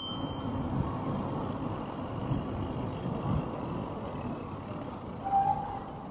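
Steady low rumble of riding a mountain bike along a city street: tyre and wind noise with traffic in the background. A brief tone sounds about five seconds in.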